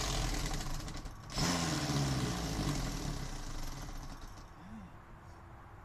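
A motor vehicle going by: a loud rush of noise with a low engine hum that swells about a second and a half in, dips slightly in pitch, then fades away.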